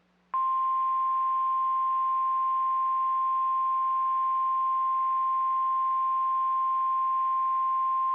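NOAA Weather Radio 1050 Hz warning alarm tone: a single loud, steady, pure high beep that starts about a third of a second in and holds unbroken, over faint radio hiss. It is the signal that a warning message follows.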